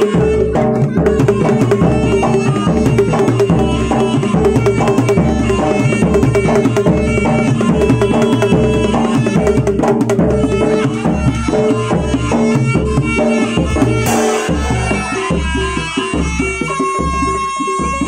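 Live Javanese jaranan music: hand drums keep a steady beat under a dense layer of pitched percussion. A long held note comes in near the end.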